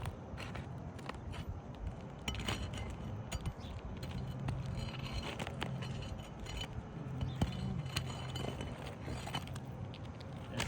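Asphalt shingles being pried apart: scattered scrapes, clicks and small cracks as the sealed seams between the shingles are broken loose.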